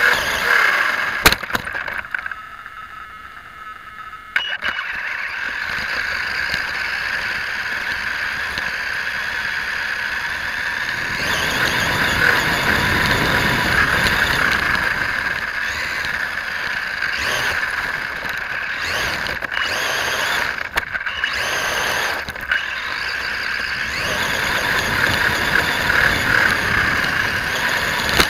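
Radio-controlled rock racer (Vaterra Twin Hammers) driving over dirt and gravel: the electric drivetrain whines steadily under the crunch and rattle of the tires on loose ground. It drops away for about two seconds near the start, then picks up again, with a few sharp knocks along the way.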